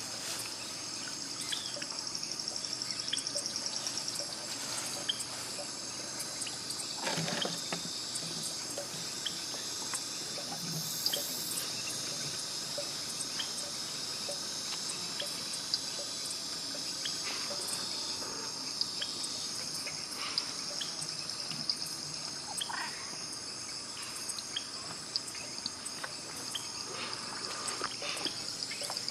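Steady high-pitched chorus of insects at dusk, with scattered drips and a few small splashes of water.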